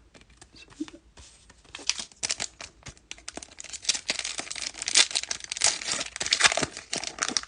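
A 2020 Topps Fire baseball card pack wrapper being torn open and crinkled: a rapid crackling that starts about two seconds in and is loudest in the second half.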